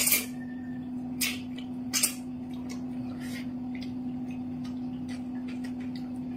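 Noodles slurped into the mouth in three quick noisy pulls within the first two seconds, then soft clicking sounds of eating and chopsticks, over a steady low hum.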